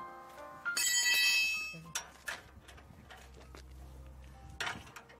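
A bright bell-like chime ringing for about a second near the start, after a short run of stepped melodic notes, followed by a few sharp clicks over a low steady hum.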